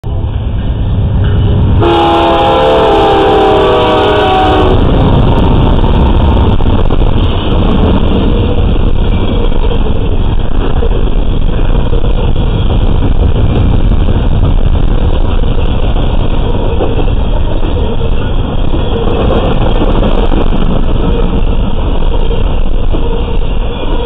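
A freight train's locomotive air horn sounding one multi-note chord for about three seconds, starting about two seconds in, then the steady rumble and clatter of double-stack intermodal cars rolling past on the rails.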